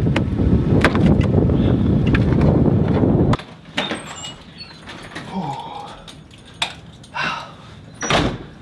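Wind buffeting the microphone, a loud low rumble that cuts off suddenly about three seconds in. It gives way to a quiet room with a few sharp clicks and knocks.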